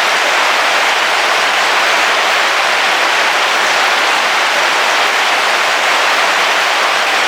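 Heavy rain falling on a car roof, heard from inside the car: a steady, dense hiss with no breaks.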